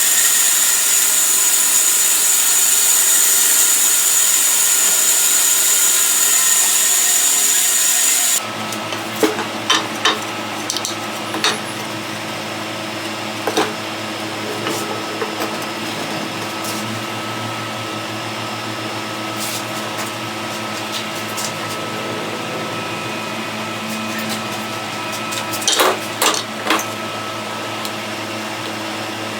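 A power tool runs steadily on the wood of a cricket bat with a high whine, then stops abruptly about eight seconds in. It is followed by a lower steady hum and scattered sharp knocks and taps, with a cluster of knocks near the end.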